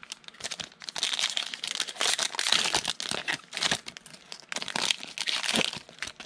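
Foil wrapper of a 2020 Panini Mosaic football card pack crinkling and tearing as it is ripped open by hand: a dense run of crackles with louder bursts, settling near the end.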